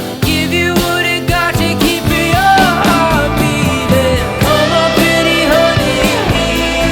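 Live rock band playing an instrumental break, with drums and bass under a lead line that slides and bends in pitch.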